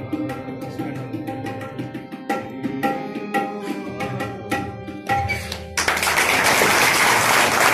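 Indian music with tabla drumming over sustained melodic notes. The music stops abruptly about six seconds in, as loud applause breaks out.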